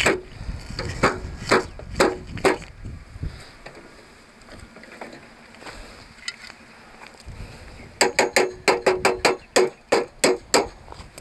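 Sharp knocks and clacks of metal and plastic parts as a metal handle is fitted to a hand-push seed planter: a few spaced knocks at first, then a quick run of about a dozen sharp taps with a short ring near the end.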